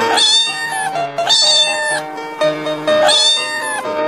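Domestic cat meowing three times, each meow under a second long, over light keyboard background music.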